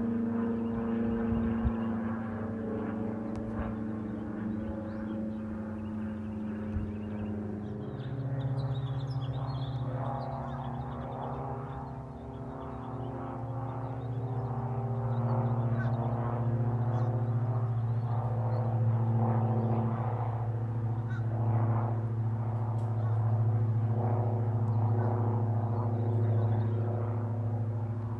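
Propeller aircraft engines droning overhead: a single-engine light plane for the first several seconds, then, from about eight seconds in, a lower, steady drone from another propeller plane that grows louder.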